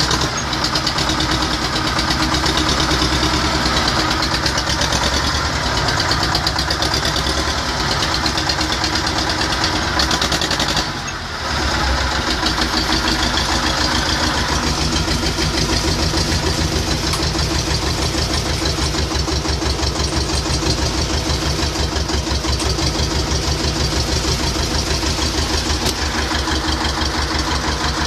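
T-25 tractor's two-cylinder air-cooled diesel running, after its repair. It runs faster for about the first ten seconds, dips about eleven seconds in, then settles into a slower, evenly pulsing idle.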